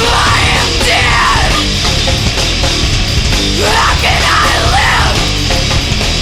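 Loud nu-metal band recording with distorted guitars, bass and drums. Two high sliding, wavering phrases sit over it, one at the start and another about three and a half seconds in.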